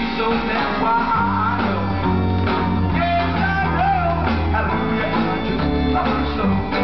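A 1964 rock and roll record playing from a vinyl LP on a turntable: the band plays guitar over bass and drums in a stretch with no sung words.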